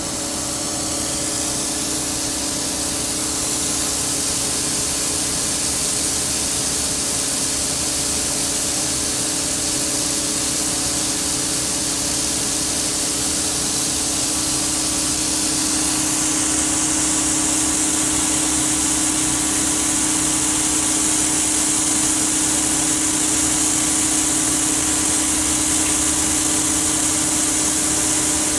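Steady rushing hiss of a stream of cobblestones pouring into a barge's steel hold, over a steady machine hum. The hiss gets brighter and louder about halfway through.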